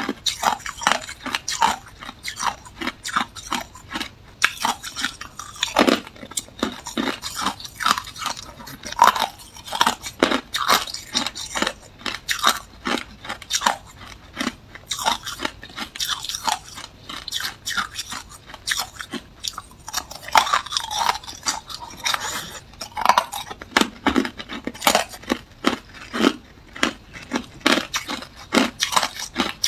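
Hard clear ice balls being bitten and crunched between the teeth close to the microphone: a dense, irregular run of sharp cracks and crunches, several a second.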